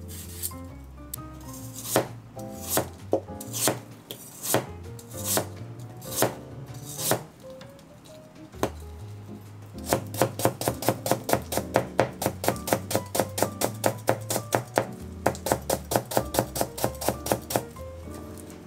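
Kitchen knife chopping on a cutting board. At first the cuts are slow and spaced about a second apart. From about ten seconds in comes a fast, even run of about four chops a second, which stops shortly before the end. Soft background music plays underneath.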